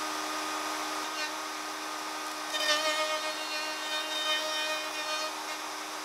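Bosch plunge router running with its bit trimming the edge of a spinning laminated plywood disc, driven by a washing machine's universal motor: a steady motor whine with the noise of the cut. A second, higher whine joins for a few seconds in the middle.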